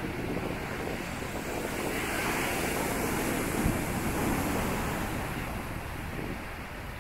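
Storm surf breaking over rocks and surging up against a stone seawall: a steady rush of water that swells through the middle, with wind buffeting the microphone. A single sharp thump about three and a half seconds in.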